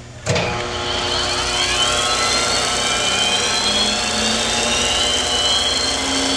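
Belt-driven internal (ID) grinding spindle of a Brown & Sharpe 1024U universal cylindrical grinder switched on with a click, then spinning up: a whine that rises in pitch for a couple of seconds and settles into a steady high whine over the machine's hum.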